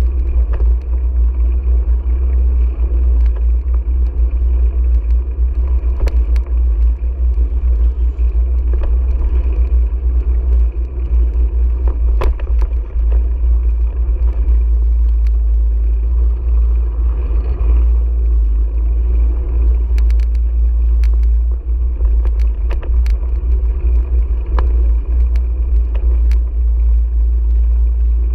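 Steady low rumble of wind and road vibration on a GoPro riding on a moving bicycle, with scattered light clicks and knocks from bumps in the pavement.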